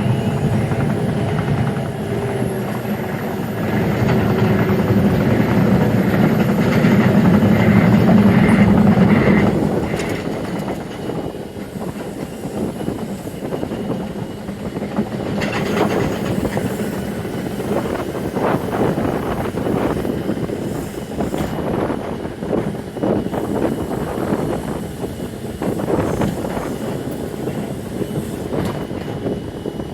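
Diesel freight train passing: the locomotive's engine hum is loudest for the first nine seconds or so, then the wagons roll by with an uneven clatter of wheels on the track.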